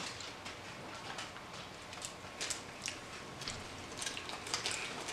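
A small candy wrapper being handled, giving scattered soft crinkles and crackles, coming more often near the end.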